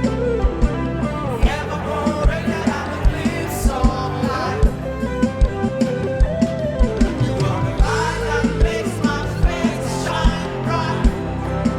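Live church praise band playing an upbeat number: held keyboard chords and bass over a steady kick-drum beat, with a wavering melodic line that may be a voice or lead instrument.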